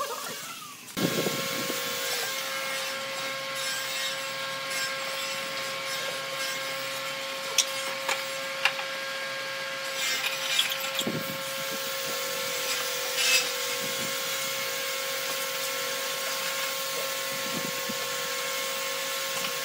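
A motor runs with a steady whine that dips briefly in pitch twice, with scattered clicks and knocks of pine boards and metal pipe clamps being handled.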